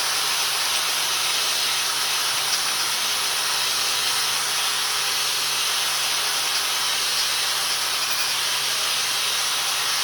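Flux-core wire-feed welding arc running steadily during an uphill (vertical-up) fillet pass on a T-joint: a continuous even hiss with a faint low hum beneath it.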